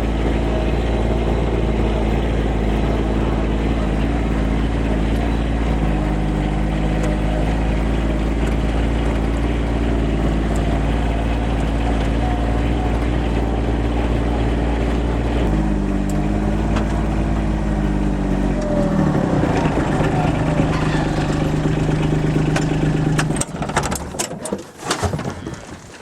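A vehicle engine running steadily, its pitch shifting a couple of times and then falling as it slows to an idle. It is switched off about twenty-three seconds in, and a few sharp clicks and knocks follow.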